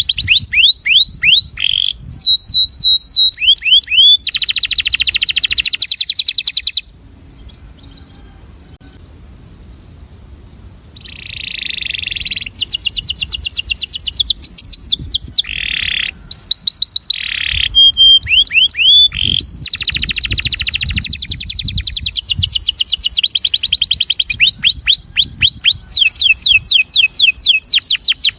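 Male canary singing its breeding courtship song: high, fast trills of rapidly repeated downward-sweeping notes, with a quieter gap of about four seconds a quarter of the way in.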